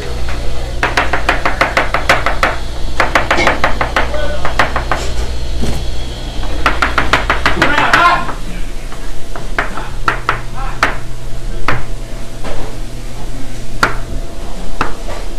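Kitchen knife chopping rapidly on a cutting board in three quick runs of many strokes, then slower single knocks, over a steady low hum that drops away about eight seconds in.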